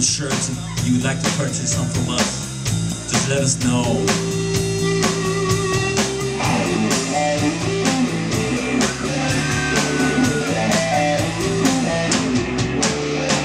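Live three-piece rock band playing electric guitar, bass guitar and drum kit through a PA, with a long held note about four seconds in.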